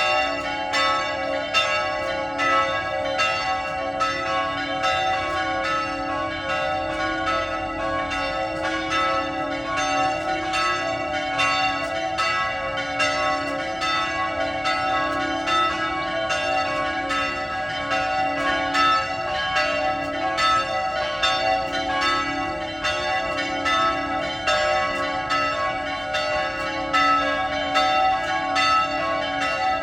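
Church bells pealing, several bells struck one after another in a steady stream of strokes, a few each second, their ringing overlapping without a pause. The ringing is the morning call to pilgrimage and Mass.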